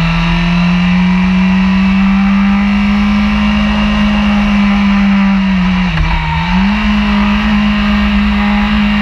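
Honda sport bike engine running hard at high, steady revs while cornering on a racetrack. The revs dip sharply about six seconds in and climb straight back up.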